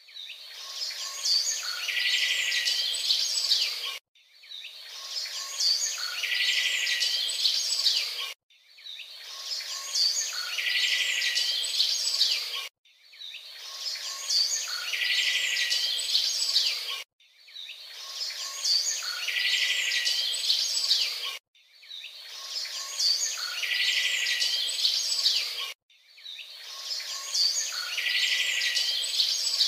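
Birds chirping with a buzzing trill, as a short clip looped over and over: the same four-second stretch repeats about seven times, each time fading in and cutting off suddenly.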